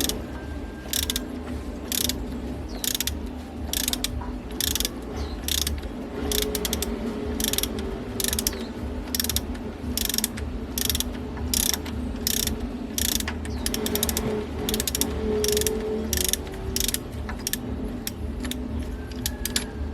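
A ratcheting hand tool is worked in steady repeated strokes, about two a second, each a short rasping click, over a steady low hum.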